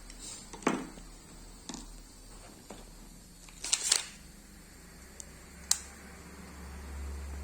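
Sharp plastic clicks and taps from hair dryer parts being handled and fitted together: single clicks, with a quick cluster of three or four about four seconds in.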